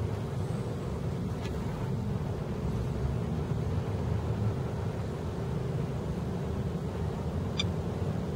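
Steady low rumble of distant traffic, with one short, high click near the end.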